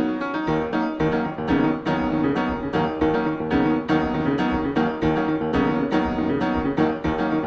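Background piano music with evenly spaced notes, about three to four a second; a bass line comes in about half a second in.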